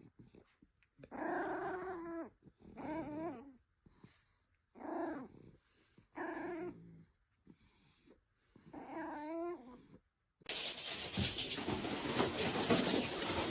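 A dog vocalizing in five drawn-out, wavering calls about a second each, with short silent pauses between them. About ten seconds in, the calls give way to a louder, steady hissing noise.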